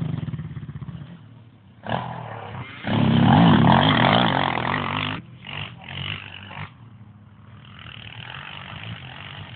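Quad bike (ATV) engine revving, its pitch rising and falling with the throttle, loudest about three to five seconds in and then dropping away.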